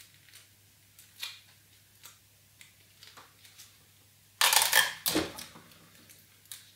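Cardboard strips and sticky tape being handled and pressed into a puppet-head frame: a few light taps and clicks, then a louder scratchy rustle lasting about a second, about four and a half seconds in.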